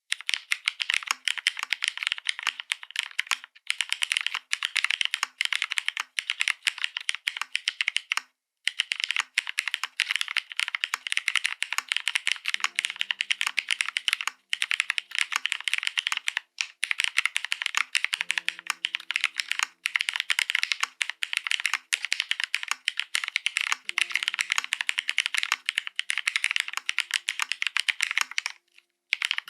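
Fast, continuous typing on a Bina 103 mechanical keyboard with Cherry Hyperglide Black linear switches, an aluminium half plate, Cherry G81-3081 keycaps and no foam: a dense stream of keystroke clacks, broken by a few short pauses.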